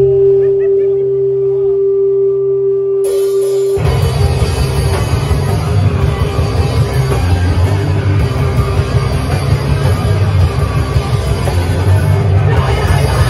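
Live rock band in a small room: a single steady held note over a low drone, then cymbals come in and, about four seconds in, the full band crashes in loudly with drums and guitars.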